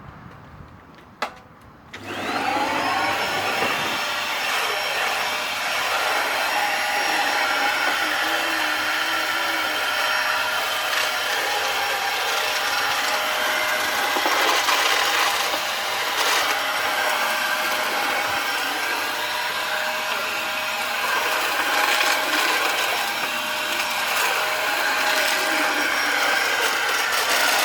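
Vacuum cleaner motor: a click, then about two seconds in the motor starts, spinning up with a rising whine, and runs steadily with a high whine.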